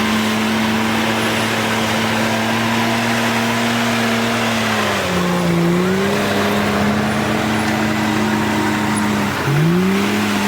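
Komatsu bulldozer's diesel engine running at high revs. Its pitch sags about five seconds in and drops sharply near the end, climbing back each time as the engine takes and sheds load.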